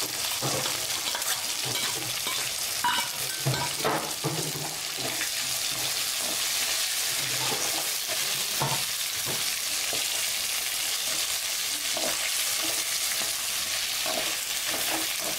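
Shallots, dried red chillies, peanuts and curry leaves frying in a little oil in a metal kadai, sizzling steadily while a spatula stirs them, with short scrapes against the pan now and then: whole spices and aromatics being roasted for a curry masala.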